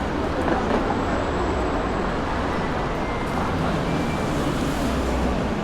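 City street ambience: a steady rumble of road traffic with a wash of background noise.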